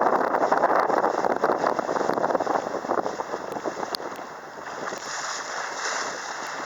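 Strong wind buffeting the microphone over water rushing and splashing around a sailboat, loudest for the first few seconds, then easing off.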